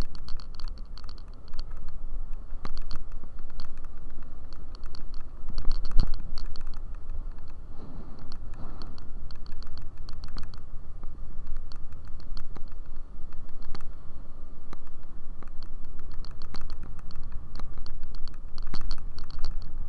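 Scooter ride: steady low wind rumble on the microphone, with clusters of small clicking rattles throughout and one harder knock about six seconds in.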